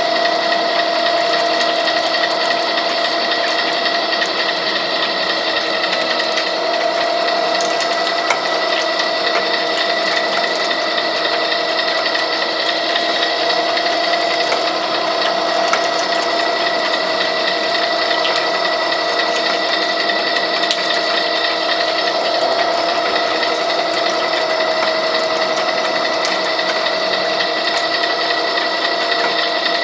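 Gear-driven pipe threading machine (Wheeler-Rex 6590, condenser motor) running steadily: a constant motor hum with a fixed gear whine, and a few faint clicks.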